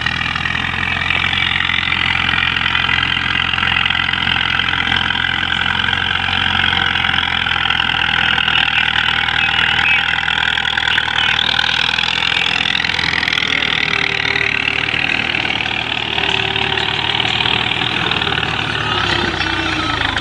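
Diesel engine of a 2007 Al-Ghazi farm tractor running steadily while it drags a rear leveling blade through loose sand.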